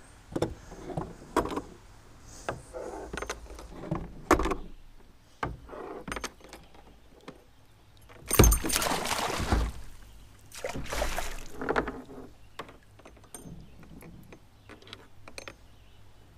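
Knocks, taps and rattles of fishing gear being handled in a plastic kayak. About halfway through there are two longer, louder stretches of noise.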